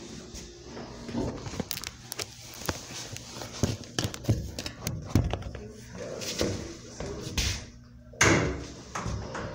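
Irregular knocks, clicks and thumps inside a hydraulic elevator car, the loudest a heavy thud about eight seconds in, over a faint steady low hum.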